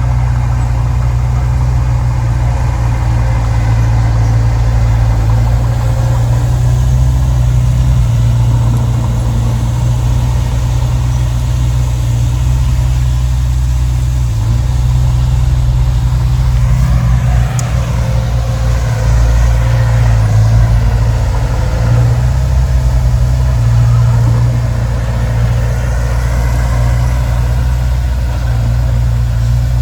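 Heavy earthmoving machinery's engine running steadily with a deep low rumble, its pitch shifting for a few seconds around the middle.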